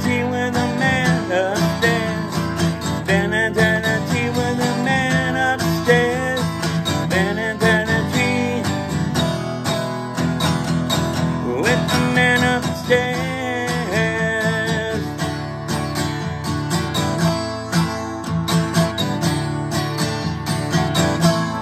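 Acoustic guitar strummed steadily in a country-style rhythm as an instrumental outro, with a wavering higher melody line over it in places.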